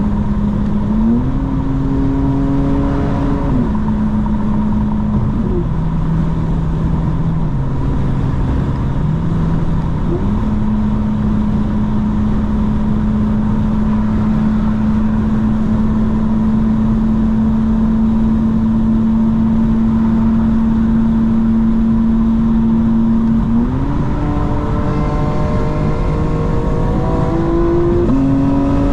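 BMW M4 Competition xDrive's twin-turbo inline-six running under way, holding steady revs whose pitch steps up and down a few times. Near the end it revs up with rising pitch, then drops back.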